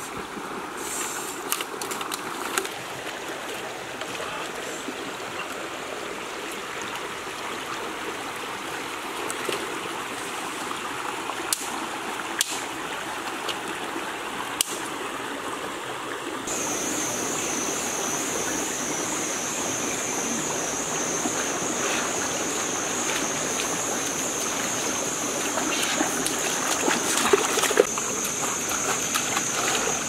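Shallow rocky stream running, a steady rush of water with occasional small splashes and clicks. About halfway in, a steady high-pitched buzz sets in suddenly, and splashing grows louder near the end.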